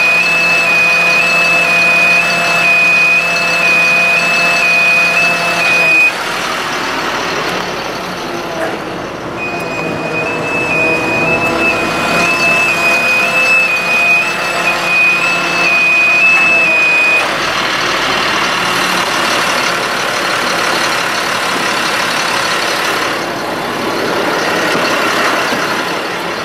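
Outrigger warning alarm beeping steadily as the bucket truck's hydraulic outriggers move, over the 2005 Ford F-750's engine running with the PTO engaged to drive the hydraulics. The beeping stops about six seconds in, starts again a few seconds later, and stops for good about two-thirds of the way through.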